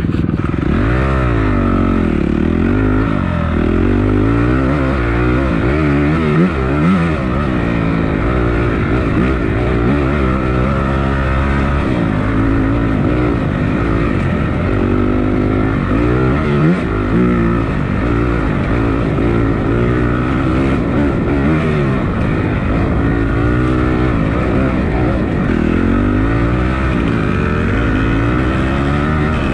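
Dirt bike engine revving up and down repeatedly as it is ridden, its pitch rising and falling every second or two.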